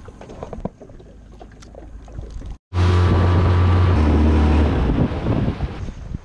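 Light clicks and knocks, then after a sudden cut a small boat motor runs loudly with a steady hum that drops in pitch about a second later, over water and wind noise, before easing off near the end.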